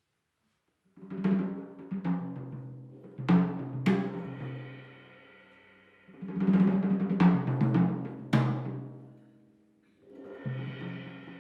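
Small jazz group of trombone, guitar, bass and drums starting to play after a second of silence: accented, ringing notes with drum hits that die away between phrases, a brief pause near the end, then the music resumes.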